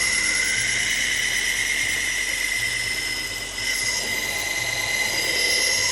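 AMK-75 belt sharpener running with a 200-grit 3M Trizact belt, grinding a pocket-knife blade's edge to raise a burr along its full length. A steady high whine that dips briefly about halfway through.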